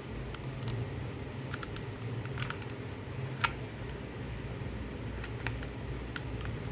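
Light plastic clicks and taps from handling and opening a hair dryer's casing, scattered and irregular, with one sharper click about three and a half seconds in, over a low steady hum.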